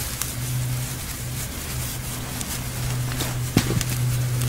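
Dry straw tinder being teased apart and fluffed in the hands, with scattered light crackles and rustles, over a steady low hum.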